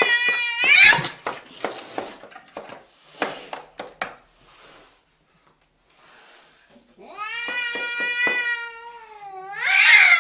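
Domestic cat caterwauling: long, drawn-out yowls, one sliding down in pitch, with short breathy noises between them. It is the warning cry of a cat defending its territory.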